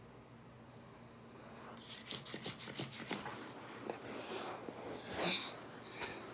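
Fingernails scratching skin: a quick run of short rubbing strokes, about five or six a second, starting a little under two seconds in, then a few slower, scattered scratches and rustles.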